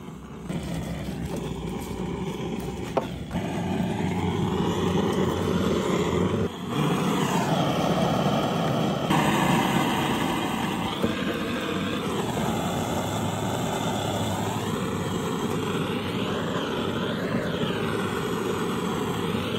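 Handheld butane gas torch burning steadily as its flame is played over meat on a bone to singe it: a continuous hiss whose tone sweeps up and down as the flame moves across the meat.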